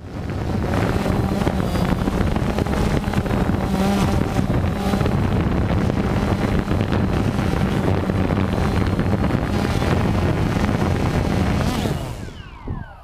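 Quadcopter drone's motors and propellers running with a steady buzzing hum, picked up by the drone's own onboard camera. Near the end the motors spin down in falling whines as the drone is caught by hand.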